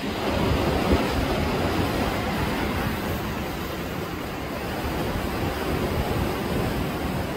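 Sea waves washing against the concrete tetrapods of a breakwater, a steady surf noise, with wind gusting on the microphone.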